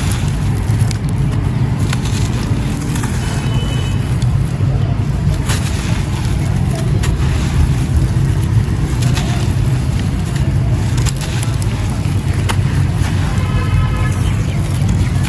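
Gritty, crumbly red sand-cement chunks being crushed and crumbled, with scattered sharp cracks, over a steady low rumble.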